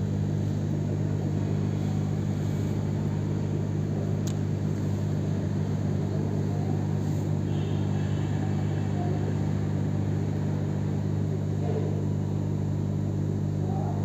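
Steady low electrical hum of an aquarium air pump running, with air bubbling from the air line into the sponge filter.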